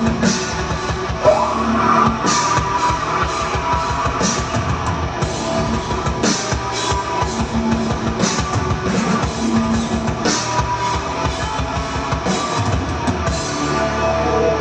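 A live rock band playing, with a drum kit and guitars, and cymbal crashes keeping a steady beat. The drums drop out near the end, leaving the guitars ringing.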